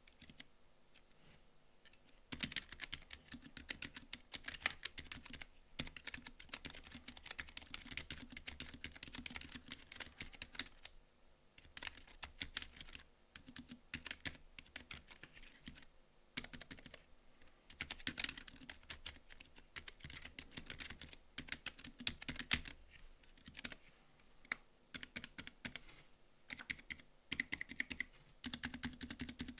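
Typing on a Keychron K7 low-profile mechanical keyboard with Gateron Red linear switches, a fast rattle of light key clacks in bursts with short pauses. It begins about two seconds in.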